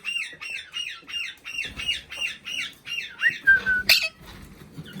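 Pet parrot calling in a fast run of short, repeated chirping squawks, about two or three a second. It ends with a short rising note, a brief held whistle and a sharp click about four seconds in.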